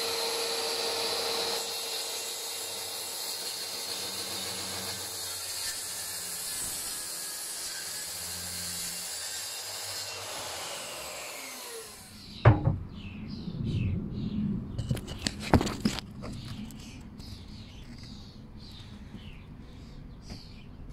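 Makita plunge-cut track saw cutting across a pine board along its guide rail, the motor running steadily for about twelve seconds before it winds down. Several clunks and knocks follow as the saw and rail are handled.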